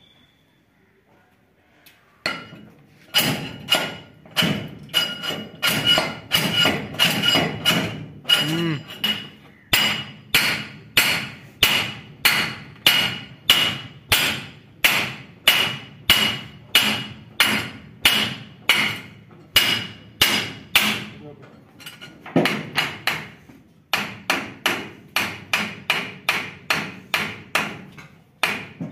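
Repeated hammer blows on steel, about one and a half a second, each with a short metallic ring, with a brief pause near the end third. A stuck bearing flange is being hammered loose from a shaft on a Swaraj 8100 combine harvester.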